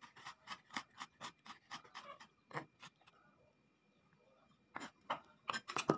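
Kitchen knife chopping garlic on a wooden cutting board: a quick run of light blade taps, about four a second, stopping after nearly three seconds, then a few more taps near the end.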